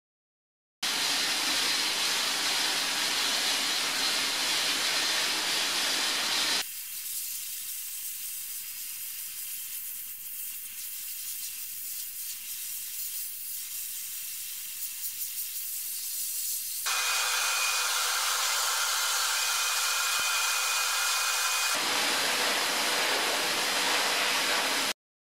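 Shot-blasting nozzle firing medium-grit glass media against a bare steel car body: a loud, steady hiss of air and grit. It starts abruptly about a second in and changes abruptly between takes, turning quieter and thinner for about ten seconds before it comes back loud, with a faint high whistle for a while.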